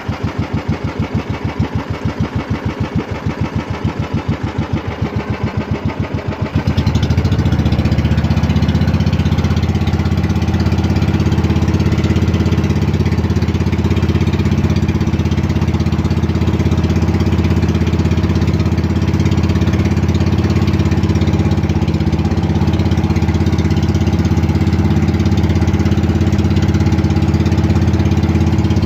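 Engine of a motorized outrigger fishing boat chugging in distinct, regular pulses at low throttle, then opened up about six and a half seconds in to a louder, steady run that holds on.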